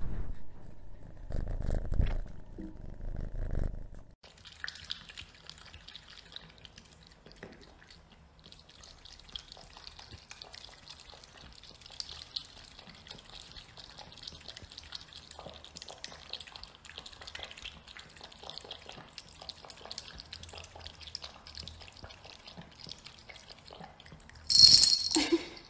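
Cat lapping water from a bowl with its tongue: a long run of quick, fine wet clicks and drips. The lapping is preceded by a few seconds of low thumps and followed near the end by a brief loud burst.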